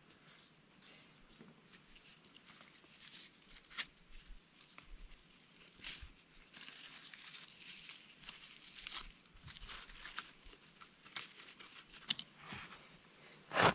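Paper tinder catching under split kindling, crackling with many small sharp pops that grow busier after a couple of seconds. A louder knock near the end as hands shift the kindling.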